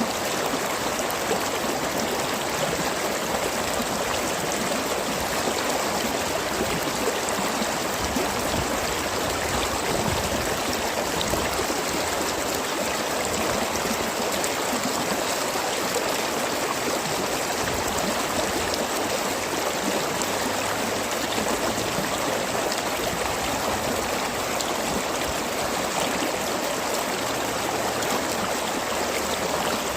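Stream of water flowing and gurgling steadily, an even, unbroken rush.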